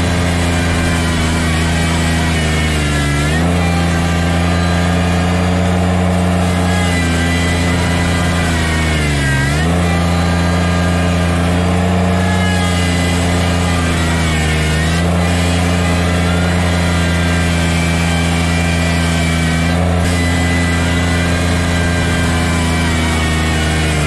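Kubota BX sub-compact tractor's three-cylinder diesel engine running steadily at high revs while its loader bucket pushes snow. Its pitch sags briefly and recovers three times, every five or six seconds, as the engine takes the load.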